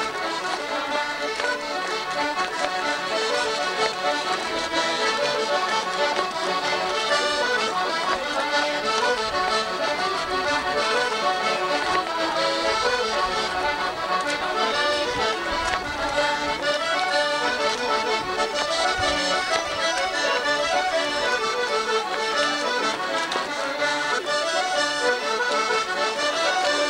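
A band of piano accordions, played by children, playing a traditional tune together without a break.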